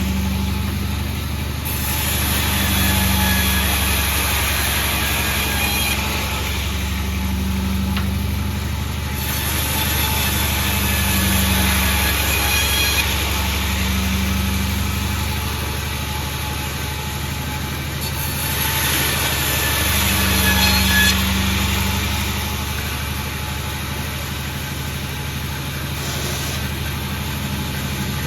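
Sawmill engine running steadily, its low hum swelling and easing every few seconds, with a high hiss from the saw that comes and goes in stretches of several seconds.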